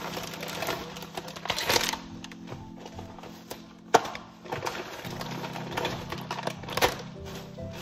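Background music over the crinkle of a plastic shopping bag and snack bags being unpacked. There are three sharp taps, the loudest about four seconds in, as packets are set down on the counter.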